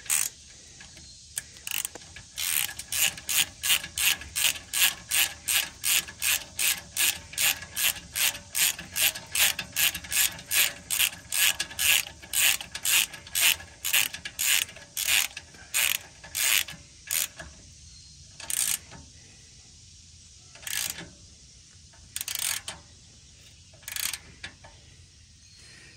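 Socket ratchet clicking as a bolt is run in on a Ford F150's front brake caliper: a fast, even run of clicks, about three a second, for most of the time, then a few single clicks spaced a second or more apart near the end as the bolt snugs down.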